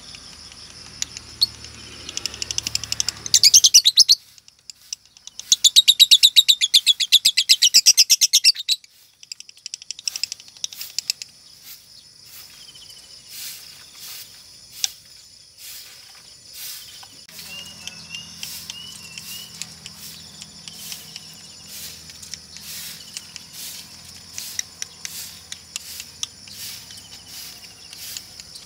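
Female Fischer's lovebird singing: two loud bursts of very fast, rapid-fire chatter, the second about three seconds long, then softer scattered chirps, clicks and a few short whistles. The video presents this song as a sign of the female turning 'konslet', the continuous male-like singing that lovebird keepers prize.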